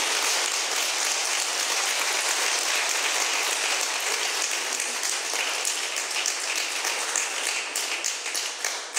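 Audience applauding: dense, steady clapping that thins to scattered individual claps near the end.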